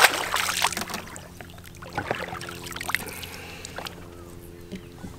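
A hooked bass thrashing and splashing at the water's surface beside the boat as it is grabbed by hand, loudest in the first second. A few short knocks follow about two and three seconds in.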